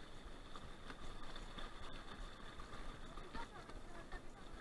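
Mountain bike wheels pushing through shallow floodwater, the water sloshing and tall grass swishing against the bike, over a faint steady high-pitched tone.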